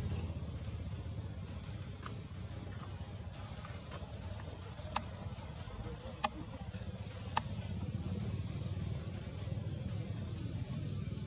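Outdoor ambience: a steady low rumble with a faint, short, high chirp every two to three seconds. Three sharp clicks come about midway.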